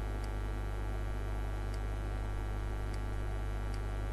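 Steady low electrical mains hum with many overtones, picked up by the recording setup, with a few faint short ticks.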